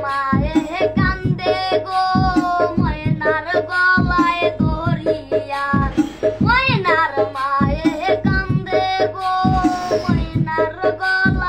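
A boy singing a Bengali folk wedding song in a high, clear voice, with long held and sliding notes over a steady low percussion beat.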